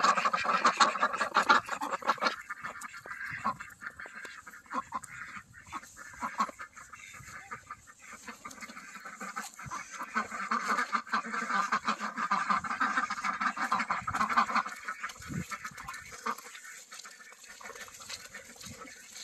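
A flock of domestic ducks quacking and chattering excitedly at feeding time. The calls are loudest in the first couple of seconds, die down, then swell again about ten to fifteen seconds in as feed is scattered among them.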